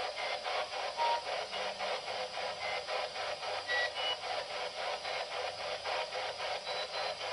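Ghost box (radio sweep device) scanning through stations: radio static chopped into rapid, even pulses of about six a second, with brief snatches of tone. Between the pulses no clear word is heard.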